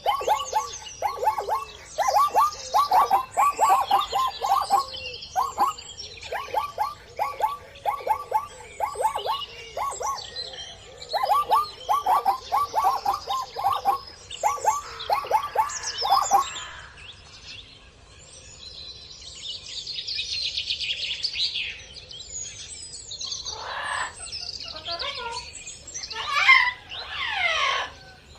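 Birds calling: quick runs of short, falling chirps repeated several times a second for the first half, then after a brief lull higher, more varied calls and harsh sweeping squawks.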